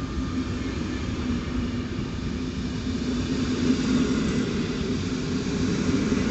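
PKP Intercity passenger coaches rolling past on the station track: a steady rumble of steel wheels on the rails.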